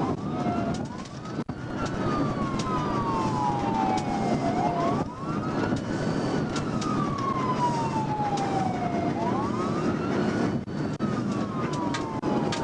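Police siren on a slow wail: the pitch rises quickly, then falls slowly, about three times, over the steady rumble of a patrol car driving at speed in a pursuit.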